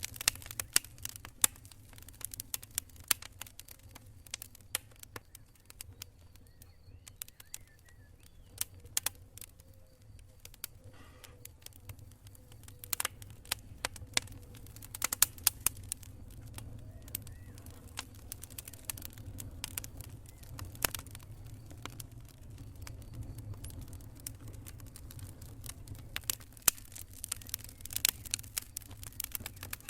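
Wood campfire crackling, with irregular sharp pops and snaps in quick clusters. A low steady rumble runs underneath.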